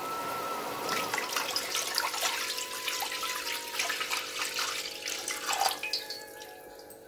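A litre of milk being poured into a pan of hot caramel syrup: a steady splashing pour that fades off near the end.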